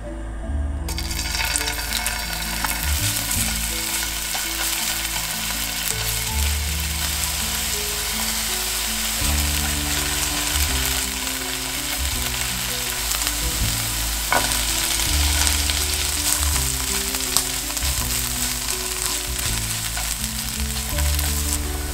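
Minced garlic and dried peperoncino sizzling in hot olive oil in a frying pan, stirred with wooden chopsticks. The sizzle starts about a second in and then keeps on steadily.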